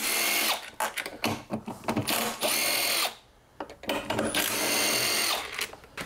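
Milwaukee Fuel cordless impact driver with a T27 Torx bit running in several short bursts, backing screws out of a leaf blower's plastic engine cover.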